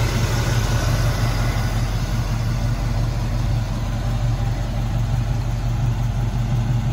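Chevrolet K10 pickup's engine idling steadily with an even low hum.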